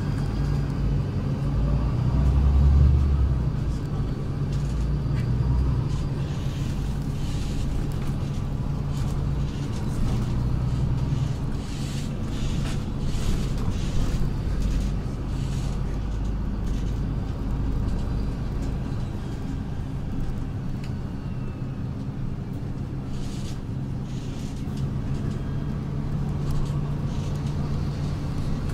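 Interior noise of a city bus on the move: a steady engine hum and cabin rumble, swelling louder for a moment about three seconds in, with light rattles and clicks along the way.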